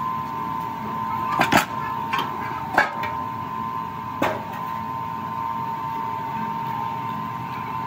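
Steel molding flasks of a sand-casting mold knocking, with four sharp metallic knocks in the first half as the top half of the mold is lifted off the pump-body pattern. A steady high-pitched machine hum runs underneath.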